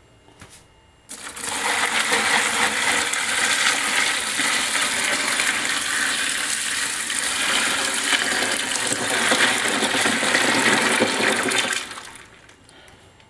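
Hot brine poured from a pot in a steady stream onto ice in a large plastic container, splashing and gushing. The pour starts about a second in and tapers off near the end.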